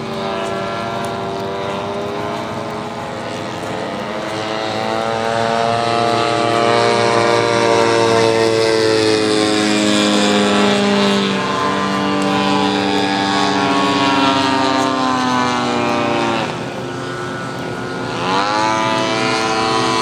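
Several radio-controlled model airplane engines droning at once, their pitches rising and falling as the planes fly and change throttle. About sixteen seconds in the loudest one drops away, then comes back with a quick sweep up in pitch.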